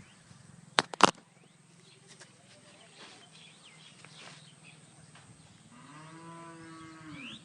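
Two sharp knocks about a second in, the loudest sounds here. Near the end, a farm animal gives one long, steady call lasting about a second and a half, rising in pitch as it ends.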